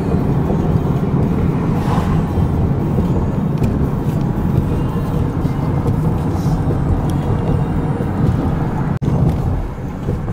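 Steady road and engine noise heard from inside a moving car on a highway, low and rumbling. It breaks off for an instant about nine seconds in.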